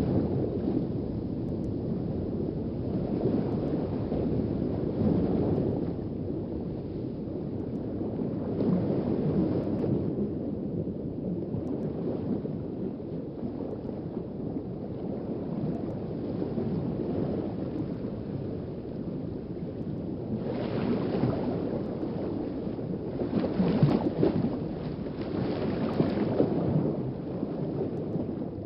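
Underwater ambience: a muffled, low rumbling wash of moving water that swells and fades every few seconds, strongest toward the end.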